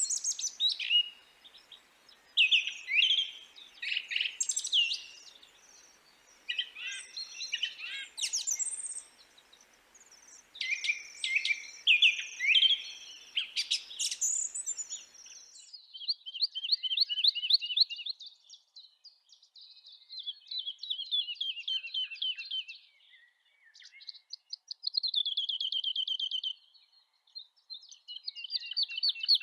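Songbirds singing: varied whistled and sweeping chirps over a faint background hiss, then, about halfway through, a cut to a cleaner recording of rapid trilled phrases repeated several times.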